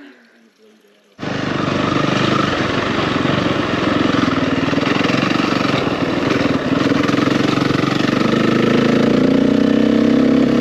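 KTM dirt bike engine running loud and close while riding, starting abruptly about a second in, its pitch climbing near the end as it revs up.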